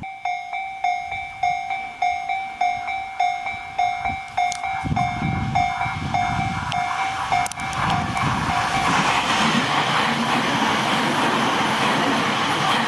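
Japanese railway crossing warning bell ringing about twice a second, then a Tobu Noda Line train runs over the crossing, its running noise covering the bell from about eight seconds in.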